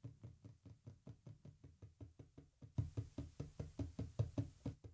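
Light, quick tapping, about five taps a second, made as test background noise for a microphone noise gate set at −36 dB. The taps grow louder about three seconds in, with a faint hiss alongside.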